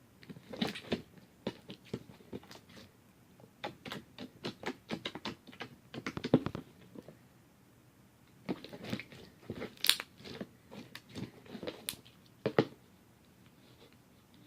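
A jiggly slime being squeezed and poked with the fingers, giving irregular wet clicks and pops that come in three bursts of activity with short pauses between.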